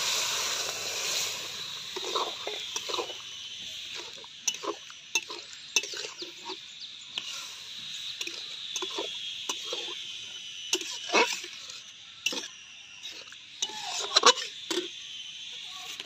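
Boiled lentils sizzling as they are poured into a hot karahi of masala-fried drumsticks, the loud hiss fading over the first few seconds. A quieter hiss carries on under a scatter of short knocks and clinks of a metal spatula stirring in the pan.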